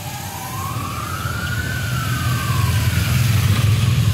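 Police motorcycle escort approaching. A siren gives one slow wail that rises and then falls away about two and a half seconds in, over engine rumble that grows steadily louder.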